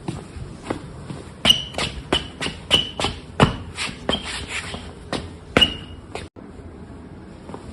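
Footsteps, about two a second, with a short high squeak on several of the steps; the steps stop about three quarters of the way through, leaving only a faint background.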